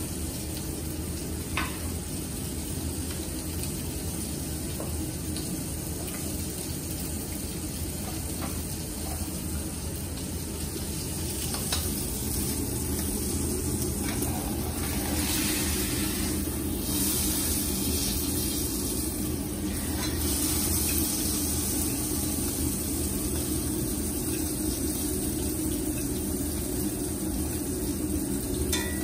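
Steak searing in a frying pan, a steady sizzle that grows louder about halfway through as the meat is turned with metal tongs. A steady low hum runs underneath, and a few light clicks come in the first half.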